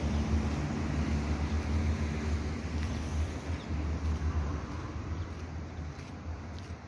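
Wind buffeting the microphone, a low, uneven rumble, with road traffic going by; it eases off in the second half.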